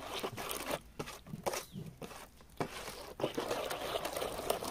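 Hands mixing a wet tandoori masala paste of ground spices, curd and mustard oil, making irregular soft squishes, scrapes and small clicks.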